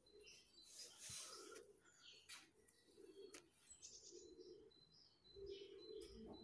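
Faint bird calls: short high chirps repeating throughout, with lower cooing notes that grow clearer near the end.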